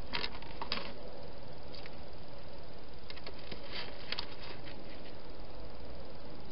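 A hedgehog eating from a bowl inside a plastic feeding box, heard as irregular short clicks and chomps, with a cluster of them about halfway through, over a steady background hiss.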